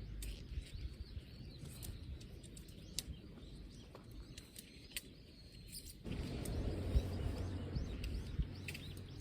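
Outdoor ambience: scattered short bird chirps over a low rumble of wind on the microphone, which grows stronger about six seconds in.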